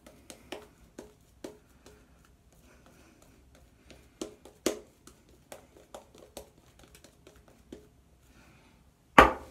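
Shaving brush working lather onto a face: a run of short, soft strokes of the bristles through the lather. A single sharp, loud knock comes near the end.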